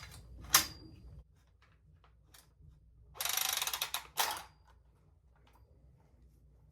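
Small metal hand-tool clicks during copper pipe fitting: a sharp click, then about a second of rapid ratcheting rattle ending in a snap.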